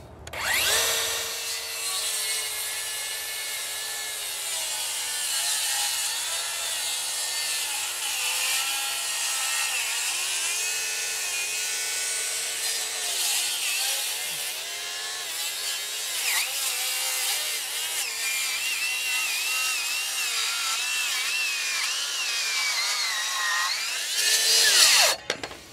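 DeWalt FlexVolt cordless circular saw cutting across a solid, dry maple log at its maximum blade depth. The motor pitch sags and recovers as the blade loads in the hardwood, but the saw does not stall, and it stops near the end once the cut is through.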